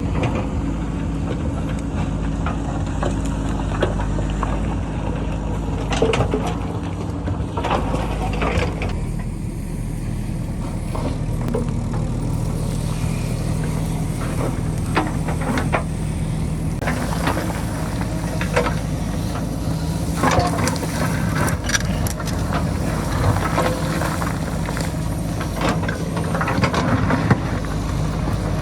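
JCB backhoe loader's diesel engine running steadily while it digs into a rocky hillside, with scattered knocks and clatter of rock and stones falling.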